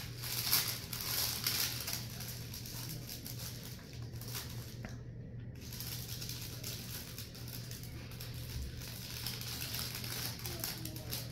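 Sterile glove packaging being peeled open and its paper inner wrapper unfolded: irregular paper crinkling and rustling, busiest in the first couple of seconds, over a steady low hum.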